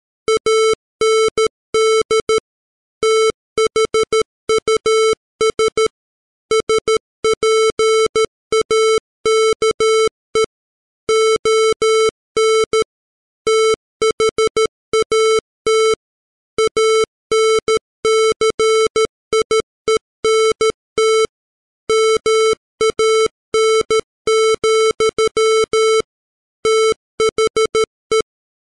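Morse code at 13 words per minute, sent as a computer-generated 440 Hz square-wave tone. The beeps switch on and off in short dots and longer dashes, with short gaps between letters and longer ones between words.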